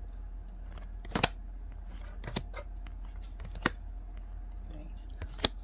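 Topps 2024 baseball cards being flipped through by hand, each card slid off the front of the stack with a sharp, short card snap, about four in all spaced a second or so apart, over a steady low hum.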